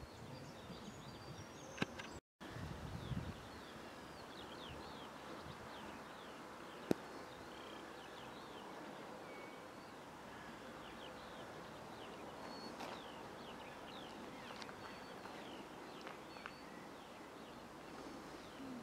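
Outdoor ambience with many small birds chirping, short falling chirps scattered all through. The sound drops out for a moment about two seconds in, a few low thumps follow, and a single sharp click about seven seconds in is the loudest sound.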